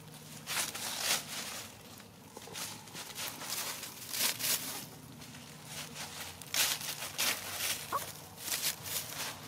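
Dry fallen leaves crackling and rustling in short, irregular bursts, as from hens pecking and scratching through leaf litter or steps through it.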